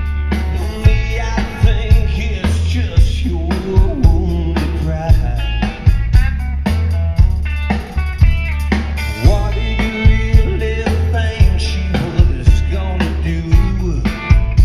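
Rock band playing live: drum kit keeping a steady beat under a heavy bass line, with a lead line of bending, gliding notes on top.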